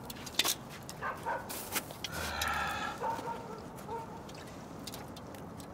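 A dog's drawn-out cry, about a second long, starting about two seconds in, over scattered light clicks.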